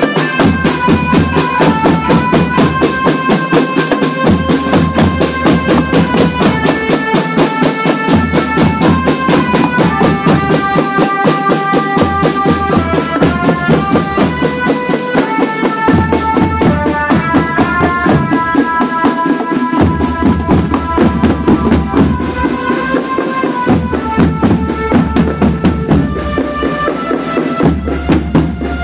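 Marching drum band playing: fast, steady drumming on tenor and bass drums with a melody of held notes stepping up and down over it.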